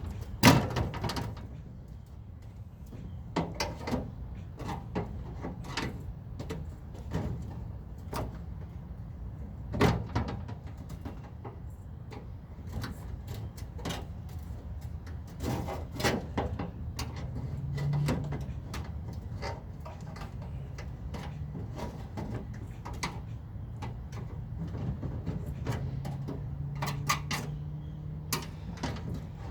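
Irregular knocks, clicks and clatter of tools and hands working at a microwave's metal casing as it is being taken apart, with a low steady hum near the end.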